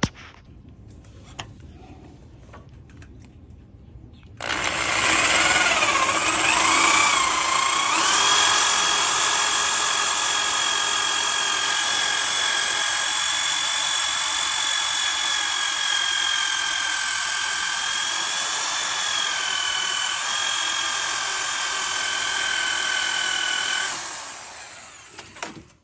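Electric power drill running for about twenty seconds, its whine wavering in pitch at first and then holding steady before it winds down near the end.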